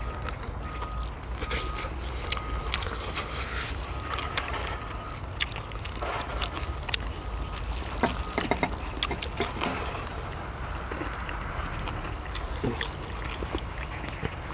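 People eating: close chewing and slurping, with many light clicks of utensils on dishes over a steady low rumble. A faint short beep repeats off and on in the first half.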